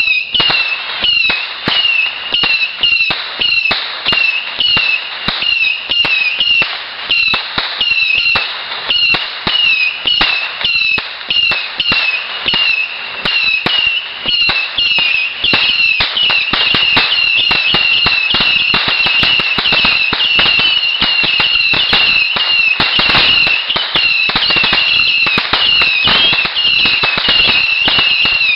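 Consumer fireworks going off: a rapid run of sharp cracks, each with a short, high whistling chirp. About halfway through they merge into a denser, continuous crackle.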